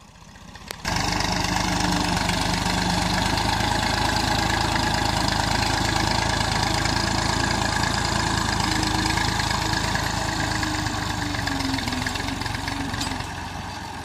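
Tractor diesel engine running steadily as it pulls a plough through a cotton crop. The sound cuts in suddenly about a second in and drops slightly near the end.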